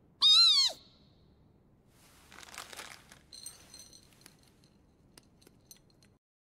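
Animated hedgehog giving one short high squeak that rises then falls. It is followed by quieter rustling and crunching with small clicks.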